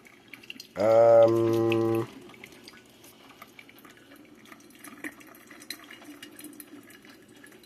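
A man's drawn-out vocal groan of disgust lasts a little over a second, starting about a second in. After it comes the faint dripping and ticking of a 12-cup drip coffee maker heating water through its first brew cycle.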